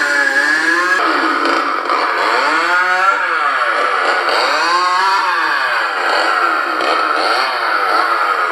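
Animated Halloween chainsaw prop playing its recorded chainsaw sound, the engine note revving up and down several times over a steady running drone.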